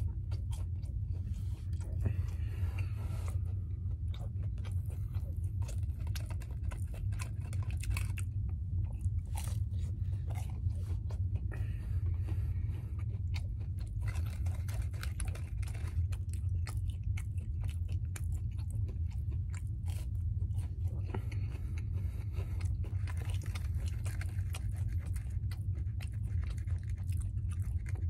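A person chewing and biting French toast sticks, with many irregular mouth clicks, over a steady low hum.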